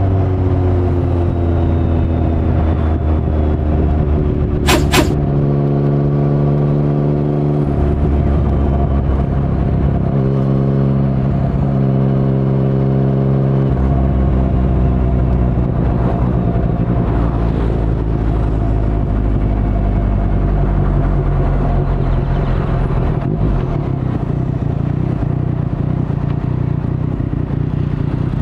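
Yamaha MT-09's 847 cc inline-three running through an Akrapovic carbon full-system exhaust with no dB killer, while riding. The engine note holds fairly steady through the middle, then slowly drops into a lower rumble as the bike slows later on, with two sharp clicks about five seconds in.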